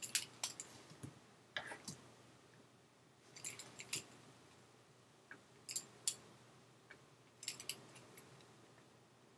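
Light clicks and short scratchy taps from hand input on a computer while drawing and erasing, coming in small clusters about every one to two seconds.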